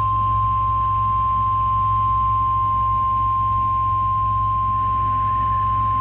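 NOAA Weather Radio warning alarm tone (1050 Hz) from a Midland weather radio's speaker: one steady, unbroken high tone, the signal that a new warning message is about to be read.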